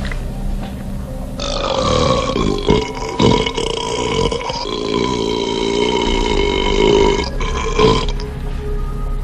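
A man belching one long, loud burp held at a steady pitch for about six and a half seconds, starting about a second and a half in and cutting off abruptly near the end.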